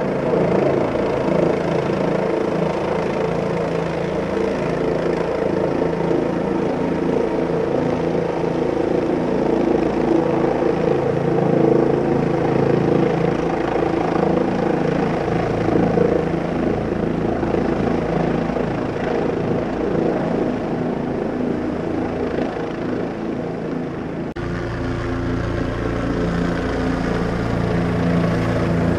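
Helicopter rotor and engine running steadily in flight, a continuous hum with several pitches, heard from on board. About 24 seconds in the hum changes slightly and its lower tones grow stronger.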